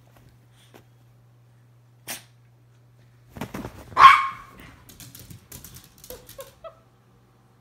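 Miniature pinscher giving one sharp, loud bark about four seconds in, just after a burst of rustling and scrambling. Faint quick clicks of claws on a tile floor follow.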